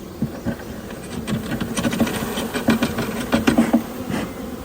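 Honey bees buzzing in a steady hum around an opened nuc. From about a second in come a run of knocks and taps as the hive frames are shaken and handled.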